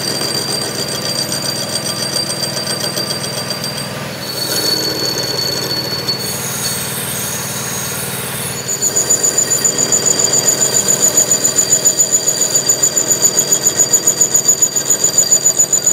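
A metal lathe turning a steel rear-axle flange, with the tool bit cutting across its face and giving a high-pitched squeal over the machine's running noise. The squeal changes pitch about 4 s in, and from about 9 s in it grows louder and pulses rapidly.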